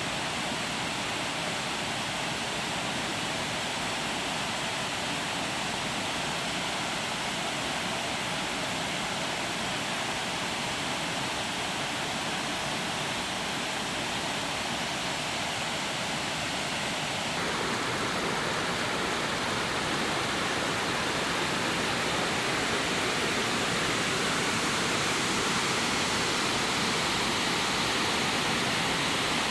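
Heavy storm rain pouring down in a steady, even hiss of water, with no thunder. It gets suddenly louder a little past halfway.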